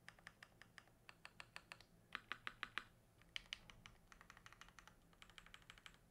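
43studios 4398 mechanical keyboard with a polycarbonate plate, plate foam, GMK keycaps and OpBlack V3 switches being typed on in quick runs of keystrokes. The clacks come in several bursts, the loudest a little after two seconds in.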